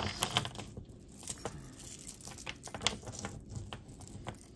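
Irregular light clicks and clinks of jewelry pieces being handled.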